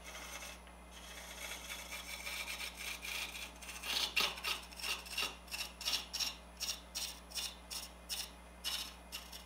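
A turning tool scraping a spinning wooden blank on a wood lathe, reshaping a taper. It makes a steady scraping hiss at first, then from about four seconds in breaks into short strokes, two or three a second.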